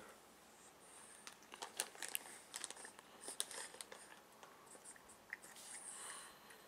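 A cat eating from a bowl: faint, irregular crunches and clicks of chewing.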